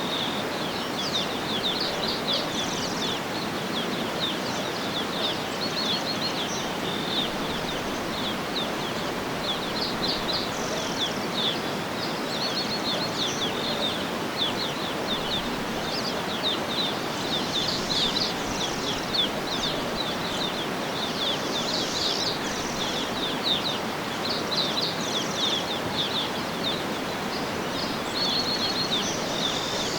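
Many short, high bird chirps and twitters, one after another, over a steady, even rushing noise.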